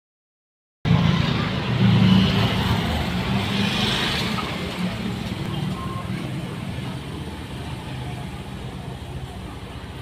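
A motor vehicle engine running close by as a low rumble, cutting in about a second in and slowly fading away.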